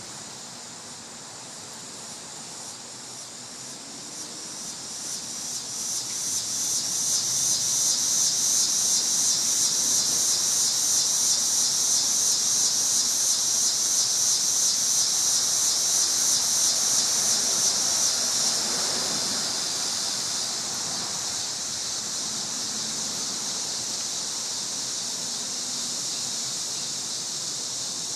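Cicadas buzzing: a high, pulsing drone that swells up over the first several seconds, pulses about three times a second at its loudest, then drops back to a lower, steadier buzz about two-thirds of the way through.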